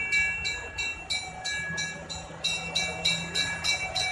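A vintage fire engine's bell ringing, struck about three times a second with each strike ringing on, over the low running of the fire engine's engine as it drives slowly past.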